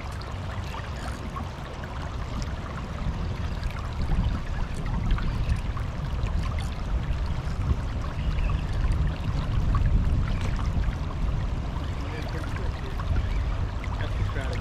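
Flowing river water rushing steadily, with a deep rumble that grows louder about four seconds in.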